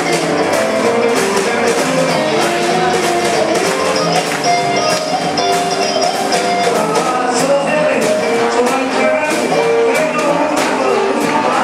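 Live rhythm-and-blues band playing: saxophones, electric guitar, upright bass and drums, with a steady beat.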